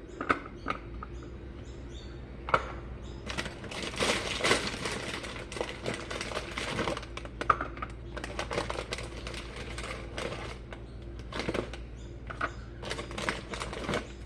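Biscuit packet rustling and crinkling as biscuits are taken out, with irregular light clicks and taps of things being handled.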